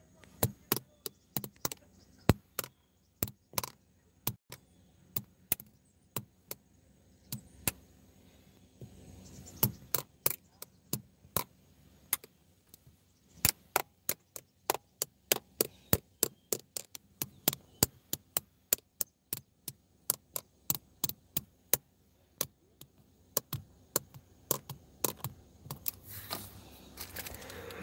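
A long series of sharp clicks or taps, irregularly spaced at roughly one to three a second, over a faint steady hum.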